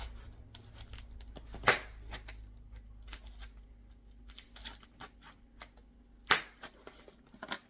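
Styrofoam packaging being pried open and broken with a pen: scattered light crackles and clicks, with two sharper snaps, one near the start and one about six seconds in.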